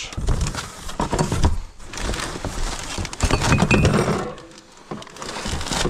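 Household items being rummaged through and lifted out of a box: a quick run of knocks and clinks with rustling, quieter toward the end.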